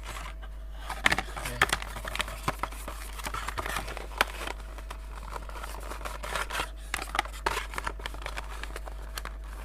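Plastic packaging crinkling as it is handled, with scattered clicks and taps as the bundled connection cables are unpacked.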